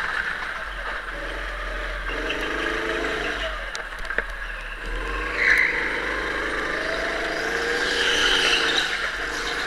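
Onboard sound of a rental go-kart lapping: its motor climbs in pitch twice as it accelerates out of the corners, over a steady hiss, with a short louder burst about halfway through.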